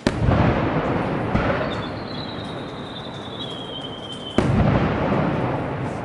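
Fireworks shells bursting overhead: a loud bang at the start, a smaller one after about a second and a half, and another loud bang about four and a half seconds in. Each is followed by a long rumble that slowly dies away.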